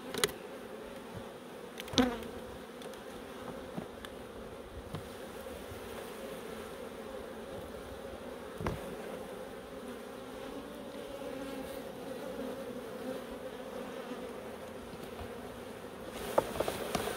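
Many honeybees humming steadily around an opened hive. A few sharp knocks stand out, the loudest about two seconds in.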